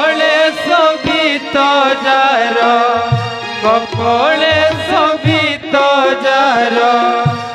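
An Odia devotional invocation song (bandana) for a Ramlila, sung by a single voice whose notes slide and waver, over steady held notes and low drum beats.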